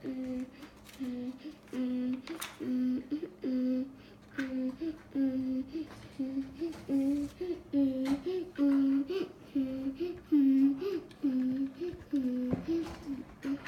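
A young boy humming a repetitive tune of short notes that keep jumping between a low and a higher pitch, with scattered small clicks of plastic Lego bricks being handled.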